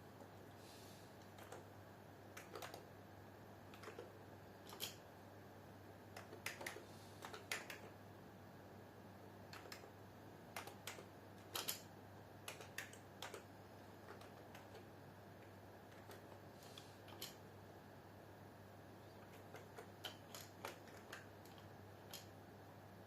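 Computer keyboard keys being typed in scattered, irregular clicks and short runs, over a faint low steady hum.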